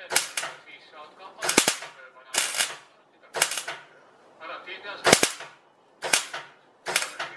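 Electric arc welder crackling in short bursts about once a second, tack- or stitch-welding a new steel exhaust pipe.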